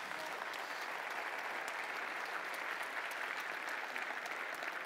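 Large lecture-hall audience applauding steadily at the end of a talk.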